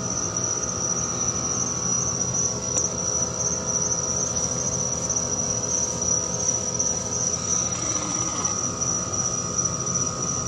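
Night insects trilling steadily, one high continuous trill with a faint regular pulse, over a low steady hum.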